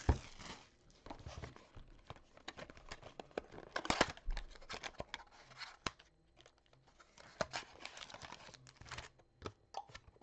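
A box of Gold Label baseball card packs being torn open and its foil packs pulled out and handled: scattered tearing of cardboard and crinkling of wrappers, with sharp clicks and taps, loudest about four seconds in.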